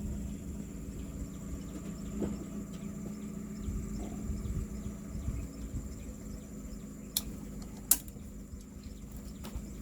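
A steady low machine hum with a constant high insect drone over it, broken by two sharp knocks near the end, less than a second apart.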